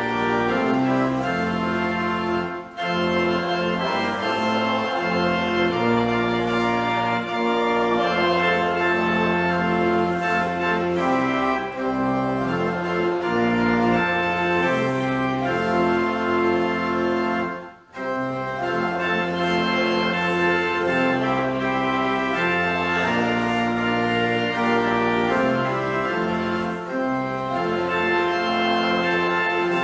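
Church pipe organ playing slow, sustained chords that change every second or so, with a brief break between phrases about 3 seconds in and a deeper one about 18 seconds in.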